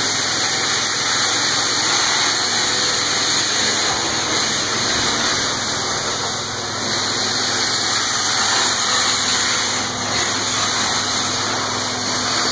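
Rotovac Bonzer carpet-extraction head running over carpet: a steady rushing noise of vacuum suction and spray, with a low hum underneath.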